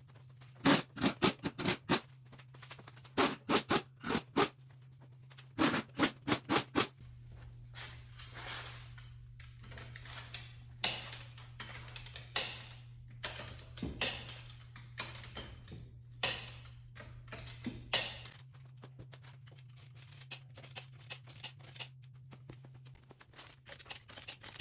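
Impact wrench fired in four short bursts of rapid hammering in the first seven seconds, running lug nuts onto a car wheel with a 19 mm thin-wall impact socket. This is followed by a handful of separate metal knocks.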